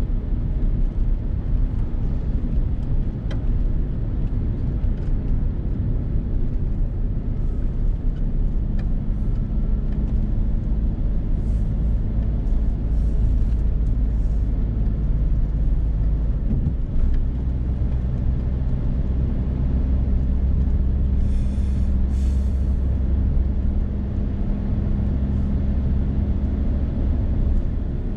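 Steady driving noise heard inside a Suzuki Hustler kei car cruising along an open road: a low engine hum and tyre rumble. The engine note shifts a little just past halfway.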